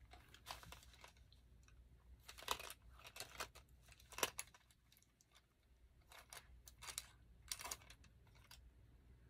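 Makeup brushes and small items being rummaged through in a container: faint, scattered clicks and rustles.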